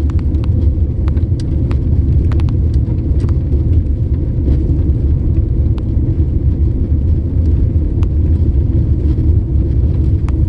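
Car driving, a steady low road rumble with scattered light clicks and ticks.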